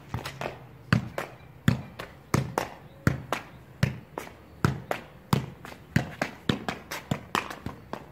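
Football being juggled with the feet: a steady run of thuds as foot meets ball, the strongest about every three-quarters of a second, with lighter taps between.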